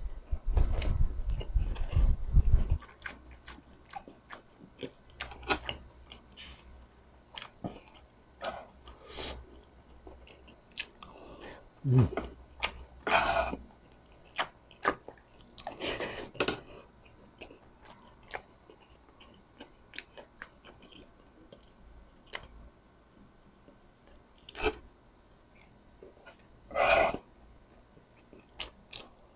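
Close-miked chewing and biting of food, pork sisig and crispy chicharon bulaklak: heavy chewing for the first few seconds, then quieter wet mouth clicks. A few short scrapes come later, where a metal spoon scoops food from the wooden plate.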